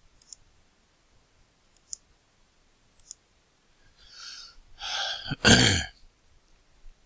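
A few computer mouse clicks, then about four seconds in a man's breathy exhale followed by a loud cough close to the microphone.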